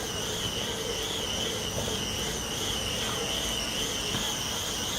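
Bicycle spinning on Tacx rollers: a steady high-pitched whine from the tyre and rollers over a low rumble, its pitch wavering evenly up and down about once a second.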